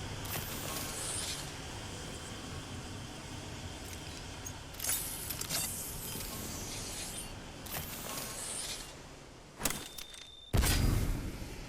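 Gas hissing out under pressure in repeated short bursts over a steady background hiss. The last and loudest burst, about ten and a half seconds in, comes with a deep thump.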